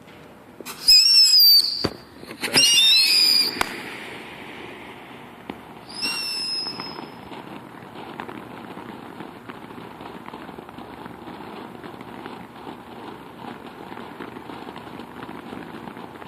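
Consumer firework fountain going off: two loud bursts with shrill whistles in the first few seconds, another whistle about six seconds in, then a steady crackle.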